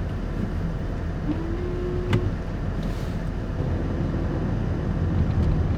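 Van driving on a snowy road: a steady low engine and road rumble, with a brief steady tone a little over a second in, ending with a click.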